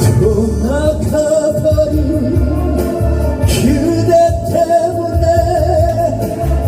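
Background music of a Korean ballad-style song: a held melody line with long, gliding notes over a steady bass beat.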